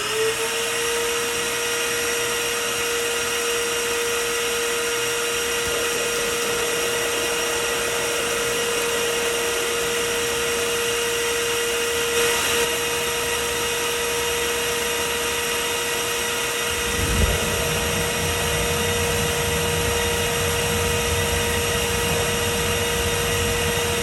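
Vacuum motor used as the blower for a homemade gas-fired foundry furnace burner, finishing its spin-up and then running with a steady whine and rush of air. About 17 seconds in, a low roar joins and keeps on as the gas burner lights and fires.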